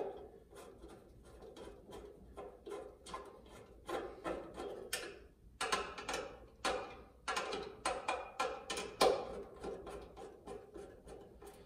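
Hand screwdriver turning a screw into the metal shelf bracket of a grill cart, driven by hand rather than with a drill. It makes a series of short scraping, grinding strokes, one with each twist of the wrist, coming roughly once or twice a second.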